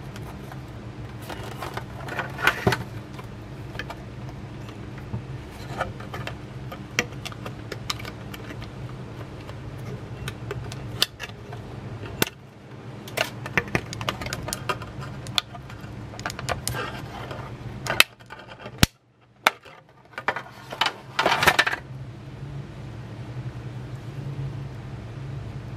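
Hands handling a Bluetooth headset's cardboard and plastic packaging, giving irregular small clicks and bursts of rustling over a steady low hum.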